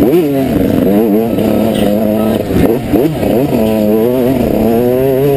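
Yamaha YZ 125's single-cylinder two-stroke engine racing at full load, its pitch rising and dropping several times as the throttle is opened and closed.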